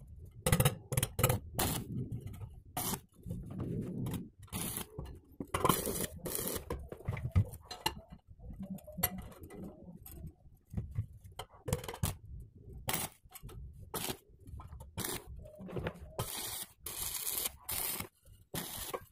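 Irregular scraping, clicking and knocking of hand work on the metal parts of a grass chopper's blade assembly, with no motor running.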